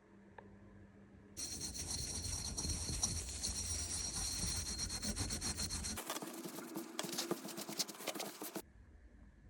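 Hand rubbing or scraping on a part, heard as two separate stretches. The first starts abruptly about a second and a half in and is a dense, steady scrubbing hiss. A few seconds later it switches suddenly to a lighter, thinner scraping with sharp strokes, which stops abruptly near the end.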